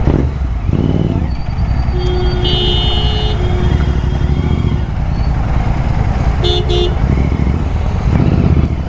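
Royal Enfield Continental GT 650 parallel-twin engine running while riding in traffic. Vehicle horns honk over it twice: a longer blast about two seconds in and a short one about six and a half seconds in.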